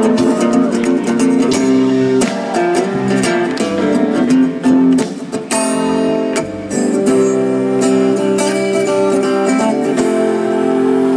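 Live band playing an instrumental passage with no vocals: guitars over drums, heard from the audience through a phone's microphone.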